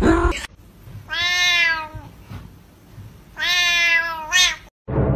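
Domestic cat meowing: two long, drawn-out meows about two seconds apart, the second followed at once by a short, quick cry.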